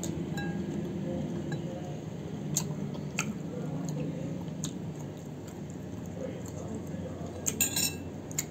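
A person chewing firm, unripe white jambu fruit dressed in chilli sambal, with a few sharp crunchy clicks. The loudest cluster comes near the end.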